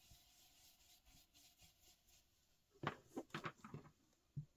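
Mostly near silence, then about three seconds in a few soft quick scuffs of a round ink blending brush being dabbed into ink on a glass craft plate, followed by a light tap.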